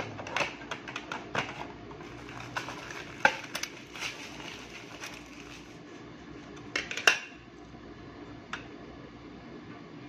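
Plastic parts and packaging handled by hand on a desk: a run of light clicks and taps, with sharper knocks about three and seven seconds in and a small tick near the end, over a faint steady hum.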